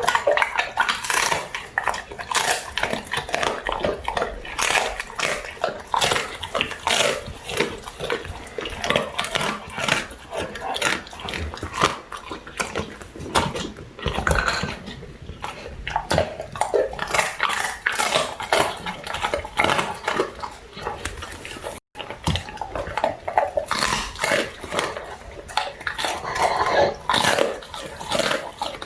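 Labrador retriever crunching and chewing crispy duck wings: a dense run of irregular crunches and bone cracks, with a brief break about 22 seconds in.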